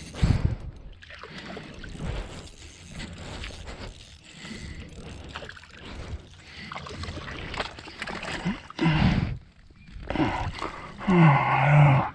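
Water sloshing and splashing with knocks and rustling from handling, including a loud thump about a second in and another near 9 s. A drawn-out voice sound comes near the end.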